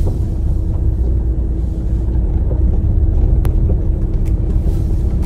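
Steady low rumble of road and engine noise inside a moving car's cabin, with a faint steady hum and a single short click about three and a half seconds in.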